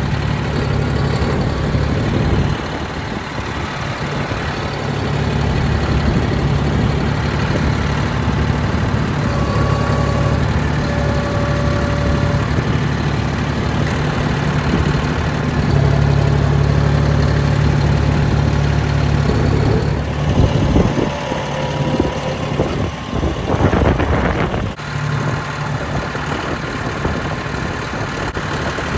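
A vehicle engine idling steadily with a low, even hum, easing off for a moment a few seconds in.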